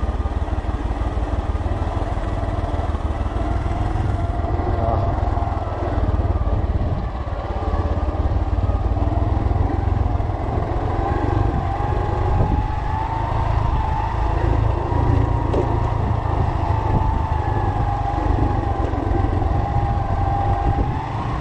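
Motorcycle engine running as the bike is ridden, a steady drone whose pitch rises slightly over the second half, over a constant low rumble.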